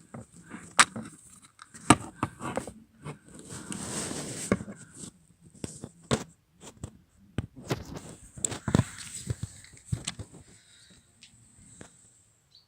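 Hands working the cabin air filter and its plastic housing: irregular clicks and knocks, with a stretch of rustling about four seconds in.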